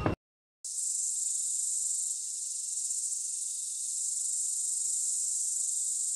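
Steady, unbroken high-pitched insect drone, presented as the sound of a beetle. It comes in about half a second in, after a brief gap of silence.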